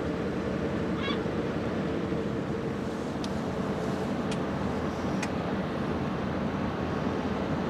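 Steady low outdoor rumble with a faint hum, with one short honking bird call about a second in and a few faint sharp ticks a little past the middle.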